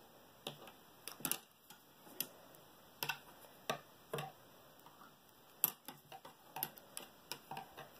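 Knitting needles clicking and tapping irregularly, about a dozen faint clicks, as a small piece of knitting is bound off stitch by stitch.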